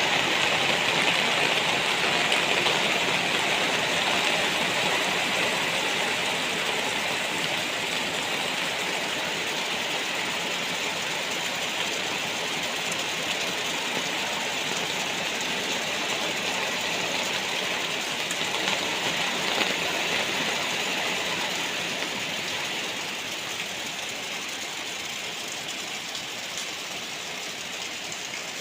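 Steady heavy rain falling, an even hiss that slowly grows quieter.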